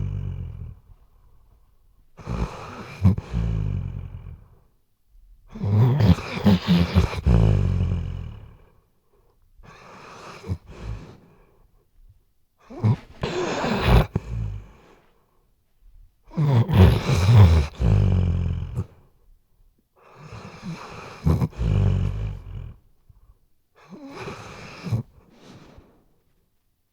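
A sleeping weimaraner snoring loudly and close up: about eight snores in a row, each one to a few seconds long, with short quiet gaps between breaths.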